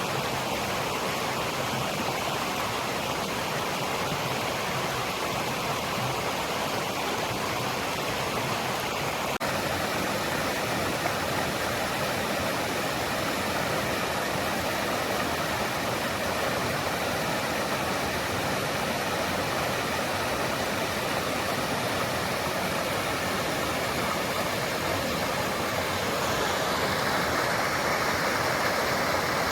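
Great Langdale Beck, a fast mountain stream, rushing and splashing over stones in a steady hiss. It turns a little louder and brighter near the end.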